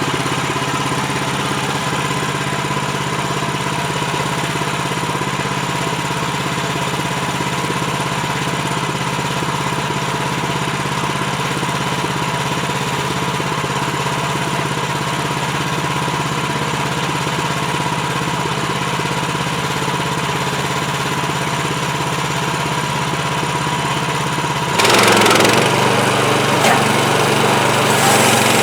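The engine of an HM130max portable band sawmill running steadily. About 25 seconds in it grows louder and harsher and its note drops a little, as the blade comes under load.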